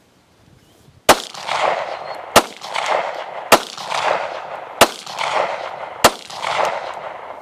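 Gen 4 Glock 17 9mm pistol firing a five-round function test: five single shots at an even pace, about a second and a quarter apart, each followed by a long echo rolling away. All five rounds fire and cycle without a stoppage.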